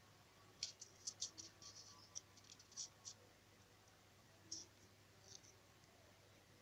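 Near silence broken by faint, irregular clicks and scratches: a quick cluster in the first three seconds, then a couple more later.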